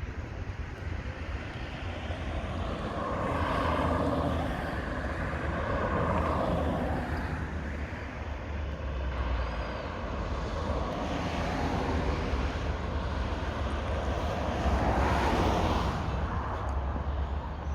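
Road traffic: several vehicles passing one after another, each swelling and fading over a few seconds, over a steady low rumble.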